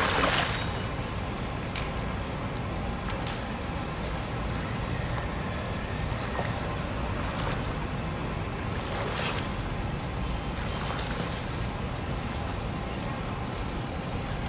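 A child swimming on her back in a pool: a splash as she pushes off from the wall, then faint splashes of her kicking and strokes every second or two, over a steady low background rumble.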